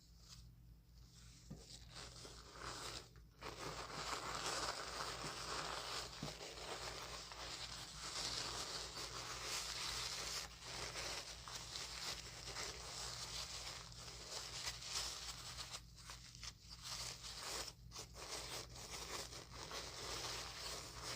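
Plastic wrap crinkling and rustling as it is handled and wrapped, with short pauses.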